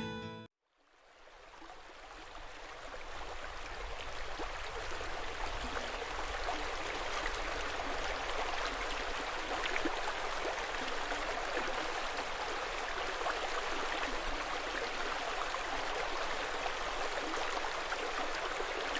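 River water flowing: a steady rush that fades in over the first few seconds and then holds even.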